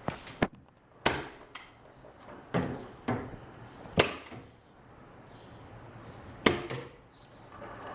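About seven sharp knocks at uneven spacing, the loudest about four seconds in, with quieter handling noise between them.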